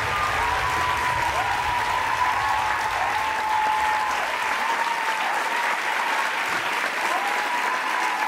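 Audience applause after a show-dance performance, a steady clapping, with a short tone that rises and holds recurring over it every second or so.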